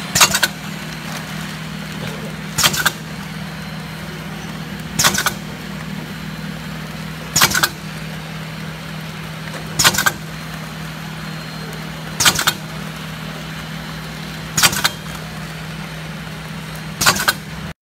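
Stick candy packaging machine running with a steady low hum, broken about every two and a half seconds by a short, sharp burst of noise, each a quick double stroke of the machine's cycle.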